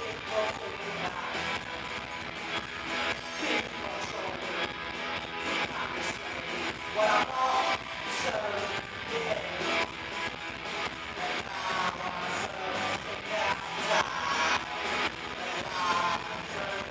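A live rock band playing: strummed electric guitars over a steady drum beat.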